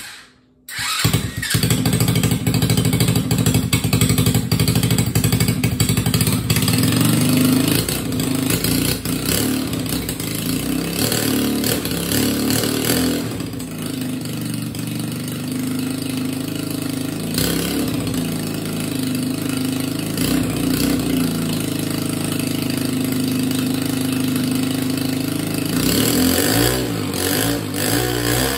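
A 125cc pit bike engine, a small single-cylinder four-stroke, starts up about a second in and keeps running. It is revved unevenly for the first several seconds, then settles into steadier running.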